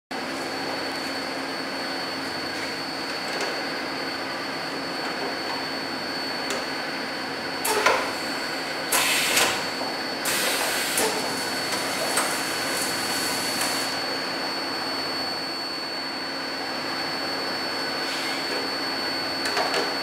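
Pneumatic air cylinders of an ET-90XXL bench-top tray sealer cycling: a sharp clunk about eight seconds in, then bursts of compressed-air hiss over the next few seconds, and lighter clicks near the end. A steady machine hum with a faint high tone runs underneath.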